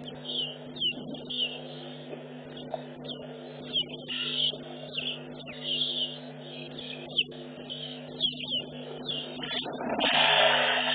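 Birds chirping in short, falling calls repeated one or two times a second, over a steady low hum. About ten seconds in, a louder rushing noise comes up.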